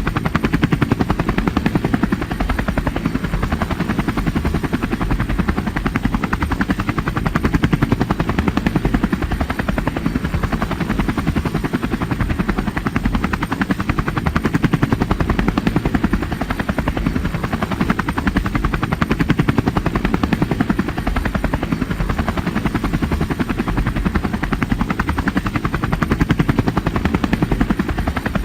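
Helicopter rotor chopping steadily at a constant rate, a rapid, even beat with a heavy low thump.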